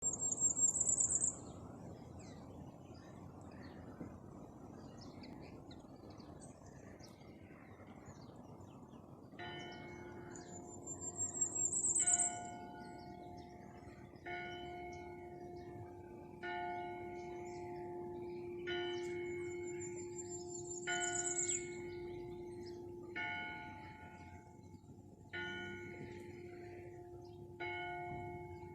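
A bell tolling, starting about nine seconds in, one strike about every two seconds, each note ringing on into the next. A bird's high, rising trill comes three times over a faint steady background.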